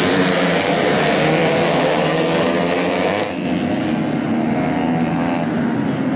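Several 125 cc four-stroke underbone race motorcycles running at full throttle together as a pack passes close, a mix of engine notes. About three seconds in the sound shifts to the pack heard from farther off, duller, as it comes on.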